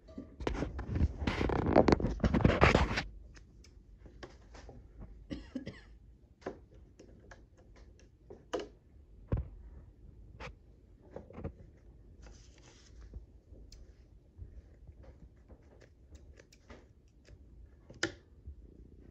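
Grover & Baker No. 9 treadle-era sewing machine running to wind a bobbin, a rapid clatter that stops about three seconds in. After it, scattered light clicks and scrapes as the small metal bobbin is taken off and handled.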